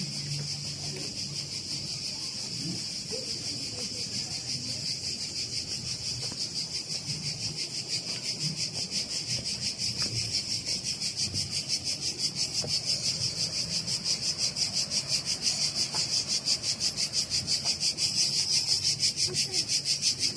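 Cicadas calling in a steady, evenly pulsing high chorus that grows louder toward the end.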